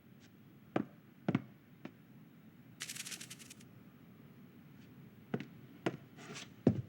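Film foley with no music: a handful of light knocks and clicks, a brief fast rattle about three seconds in, a soft swish, then a sharper knock near the end, the loudest of the lot.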